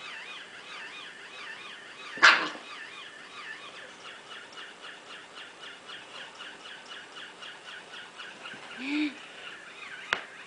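Battery-operated walking toy pig running, its sound unit giving a steady repeating electronic chirp about three times a second. A Pomeranian gives one short loud bark about two seconds in.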